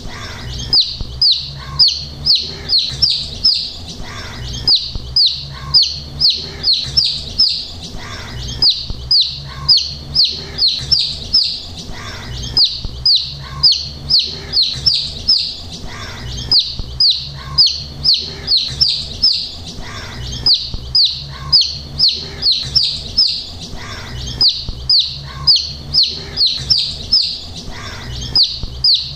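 A group of young domestic chicks peeping continuously: short, high peeps that fall in pitch, coming in quick runs of about three to four a second with brief pauses between runs.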